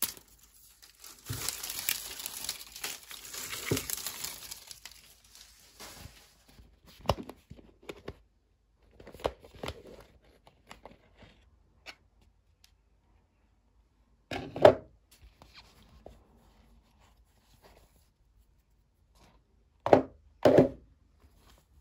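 Plastic toy packaging crinkling and tearing for several seconds as a mystery egg is unwrapped, then scattered handling clicks. Three sharp knocks follow later, one on its own and then two close together near the end, from the hard plastic egg shell being handled.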